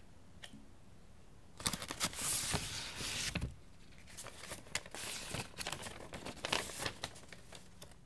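Paper rustling and crinkling as an envelope is handled and a folded handwritten letter is opened out, in two crackly bouts starting about a second and a half in.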